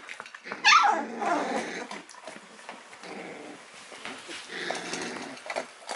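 Young Labradoodle puppies whining and crying: a loud cry that falls in pitch about a second in, then softer whines.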